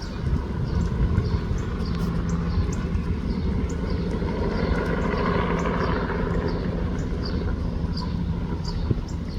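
Bell 206 helicopter running close by: a steady rotor throb and turbine rumble that swells for a moment about halfway through. Faint short high chirps repeat about three times a second over it.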